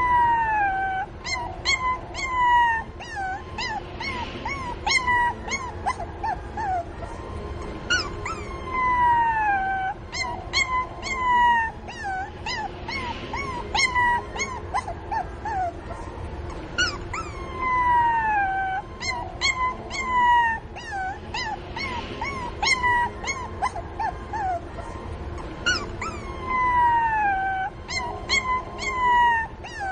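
A puppy crying for its mother: long, high whines that fall in pitch, mixed with many short yelping whimpers. The same run of cries recurs about every nine seconds.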